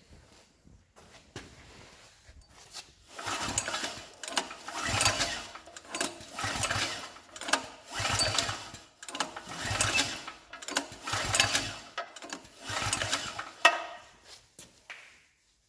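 Gasoline generator's small engine being cranked over and over, with about a dozen rhythmic surges a little more than a second apart. It turns over but never fires, the sign of a generator that won't start. The cranking stops near the end.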